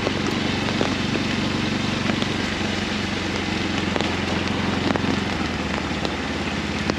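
Motorcycle engine running at a steady pitch under a constant hiss.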